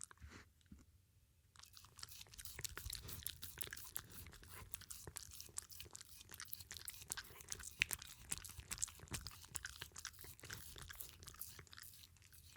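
A dog chewing and crunching food close to the microphone: a few scattered bites, then from about a second and a half in a fast, steady run of crisp crunches that stops near the end.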